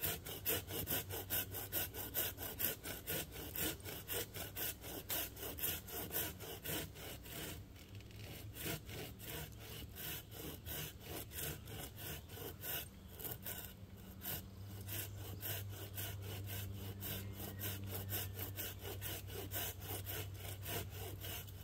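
Folding hand saw cutting the back cut through a dead, dry Virginia pine trunk in steady back-and-forth strokes, about three a second. The tree is just starting to move as the cut goes through toward the hinge.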